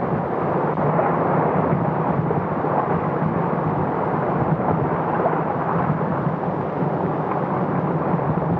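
Steady rushing noise of wind and sea waves, with a faint low hum underneath.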